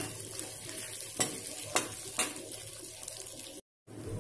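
Boiled potato cubes sizzling in hot ghee in a metal kadhai, with a steel spatula scraping and knocking against the pan about four times. The sound drops out briefly near the end.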